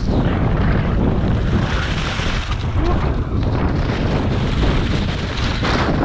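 Strong wind buffeting the microphone: a loud, steady rumbling noise.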